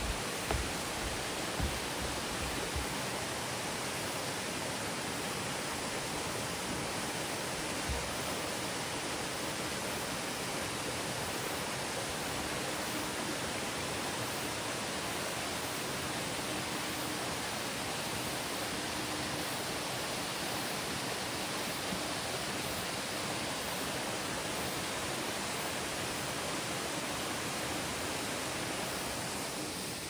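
Waterfall rushing steadily: a dense, even noise of falling water that holds unchanged throughout.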